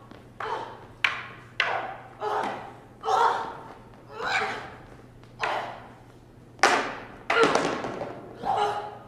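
A staged weapon fight: about ten sharp clashes and knocks of the stage-combat weapons striking, roughly one a second, mixed with the fighters' shouts and grunts of effort. The sounds ring on in a large hall.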